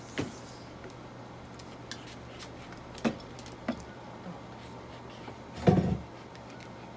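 A few short knocks and bumps from a dog being held and handled on an examination table, the loudest a cluster of dull thumps near the end.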